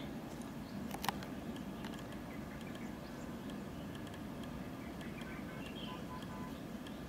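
Steady low outdoor background rumble with faint scattered high chirps and small ticks, and one sharp click about a second in.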